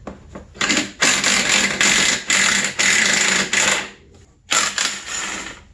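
Cordless power tool spinning in a few bursts of a second or so each, backing out the anchoring bolts that hold a snowmobile engine's recoil housing.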